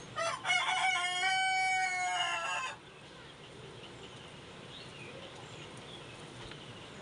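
One long bird call lasting about two and a half seconds: it opens with a few short broken notes, is then held on one pitch, and sags slightly as it ends.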